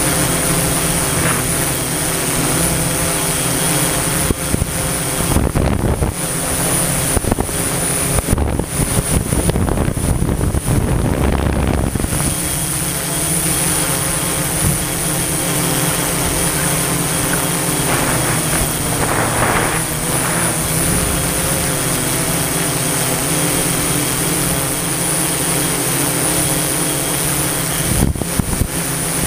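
Multirotor drone's electric motors and propellers humming steadily, heard from the camera carried on the drone. A louder rushing noise rises over the hum from about four to twelve seconds in.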